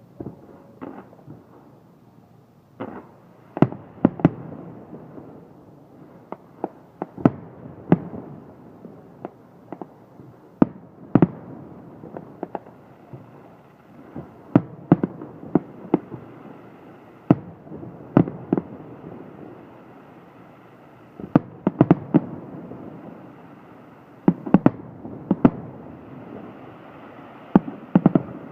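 Aerial fireworks bursting high overhead: loud, sharp bangs at irregular intervals, often two or three in quick succession, over a continuous background of crackle and rumble.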